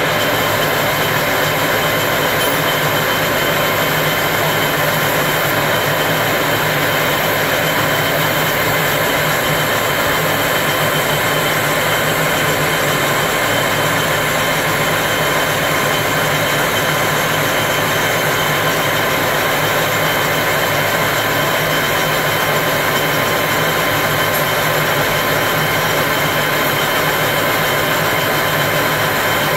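Lathe running steadily while a cutting tool turns down a white plastic rod: a loud, even machine hum with several fixed tones.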